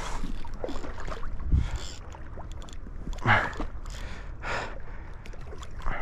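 Water splashing and sloshing in a river, in several separate splashes (the loudest about a third of the way through), over a steady low rumble.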